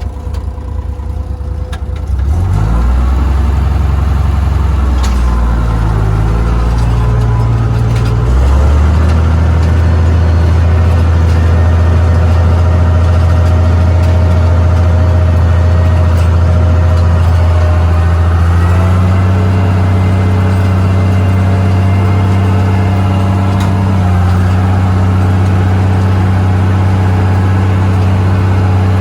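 International tractor engine revving up from idle about two seconds in, then running steadily and stepping up in engine speed twice more, near a third of the way and about two-thirds through, as it works under load pulling a disc plough.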